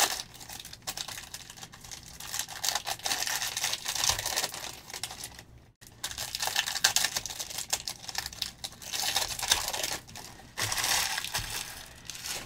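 Panini Select trading-card pack wrappers crinkling and tearing as packs are ripped open and the cards handled. The rustling comes in irregular spells with brief lulls.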